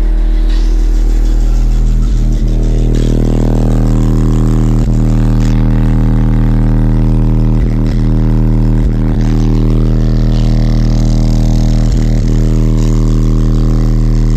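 Car subwoofers playing a steady 40 Hz bass test tone at half power from a DC Audio 10k amplifier, very loud, with a buzzy stack of overtones above the tone that swells in over the first few seconds.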